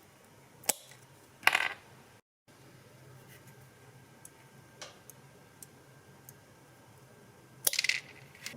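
Small metal tools and parts handled on a workbench: a sharp click, then a short clatter, a few light ticks, and another click and clatter near the end. The sound drops out entirely for a moment after about two seconds.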